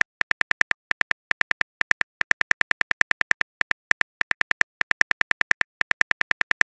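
Phone keyboard clicks as a message is typed: a quick, steady run of short taps, about six to eight a second, with brief pauses between words.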